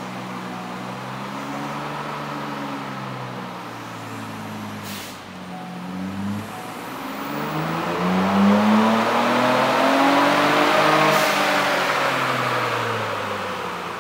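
Ford Bronco Raptor's twin-turbo V6 making a wide-open-throttle pull on an all-wheel-drive chassis dyno with the load cell turned up. The engine note dips briefly about five seconds in, climbs in pitch to its loudest a few seconds later, then winds down as the pull ends.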